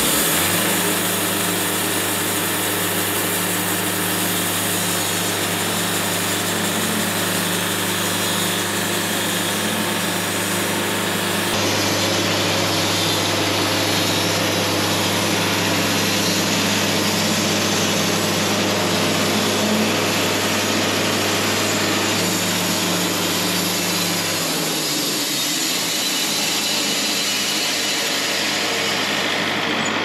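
Wood-Mizer LT70 bandsaw sawmill running, its band blade sawing through a sassafras log, with a steady machine hum under the cutting. The low hum changes about 25 seconds in.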